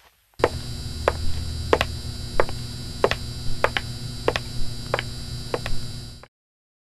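High-heel footsteps clicking at an even walking pace, about one step every two-thirds of a second, over a steady electric buzz of a neon sign that starts about half a second in. Both cut off suddenly near the end.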